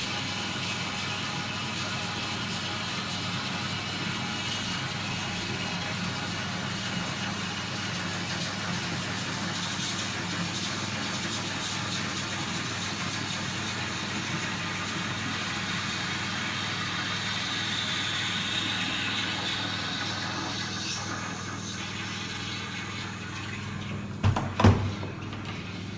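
A 1970s Twyfords Classic low-level toilet cistern refilling after a flush: a steady hiss of water through the inlet valve that rises in pitch and then fades out about twenty seconds in as the tank fills. Two sharp knocks come near the end.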